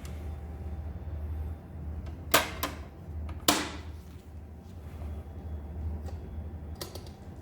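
A few sharp clicks and knocks of small hard objects: two close together about two seconds in, a stronger one about a second later, and a faint one near the end, over a steady low hum.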